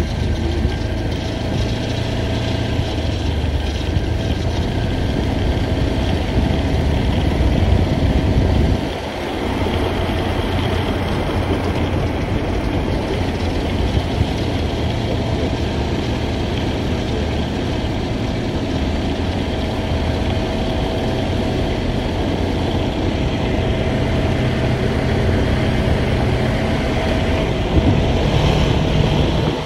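Steady low rumble of a running vehicle, with a brief dip about nine seconds in.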